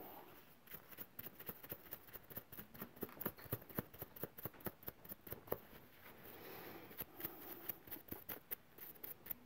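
Faint, irregular light clicks and taps, a few a second, from an oil painter handling a filbert brush at the palette and paint jars.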